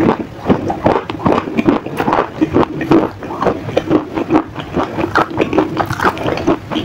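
Close-miked chewing: a person crunching a bite of a hard, clear stick, a rapid, uneven run of crackling crunches.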